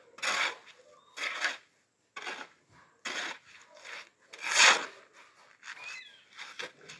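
Repeated rasping scrapes of a hand tool, coming irregularly about once a second.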